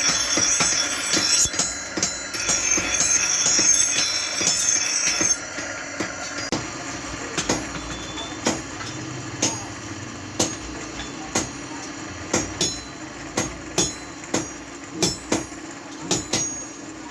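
Hammer blows on metal during hand forging, sharp strikes coming about once a second over a steady hum. For the first five seconds the strikes sit under a louder, high ringing tone.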